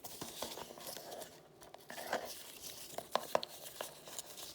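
Old paper crinkling and rustling as it is handled, with a few light clicks and taps from small items in a drawer, the sharpest about three seconds in.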